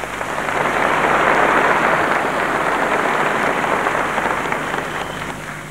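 Concert audience applauding, the applause building over the first second or so and tapering off near the end.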